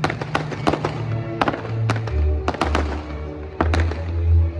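Fireworks display: a rapid string of sharp bangs from shells bursting, several a second, with music and a deep bass line playing underneath.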